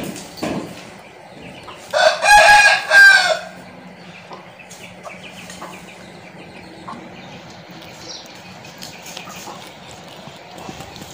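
A rooster crowing once, about two seconds in, the call lasting about a second and a half.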